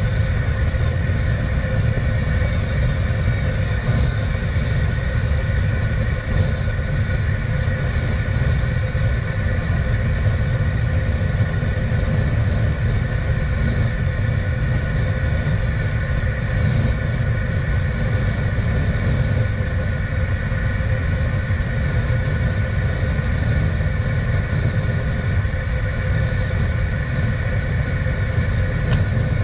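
Gas torch burning steadily at full flame: a constant low rumbling rush with faint, steady whistling tones above it.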